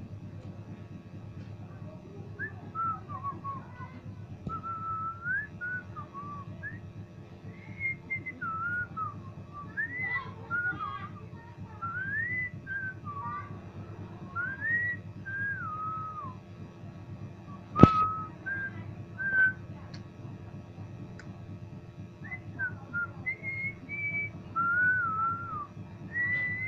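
A person whistling a wandering tune in short rising and falling phrases, with gaps between them, over a steady low hum. A single sharp click sounds about 18 seconds in.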